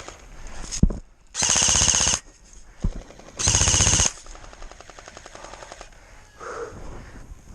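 Airsoft gun firing two short full-auto bursts, each under a second, about two seconds apart. Fainter rapid shots from other guns sound in between and after.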